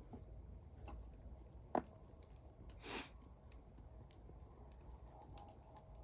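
Faint scattered clicks and pops from a crackling wood campfire, over a low steady rumble. There is a sharper crack a little under two seconds in and a brief burst of noise about three seconds in.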